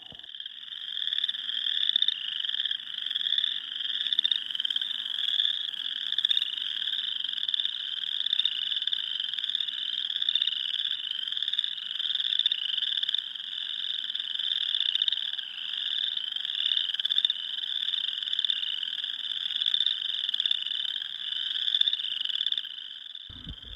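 Dense spring chorus of many small frogs calling at once, their pulsed trills overlapping without pause. It cuts off abruptly just before the end.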